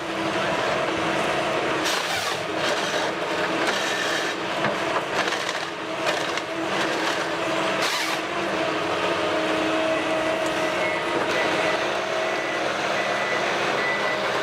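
Heavy machine's engine running steadily, with a few sharp knocks.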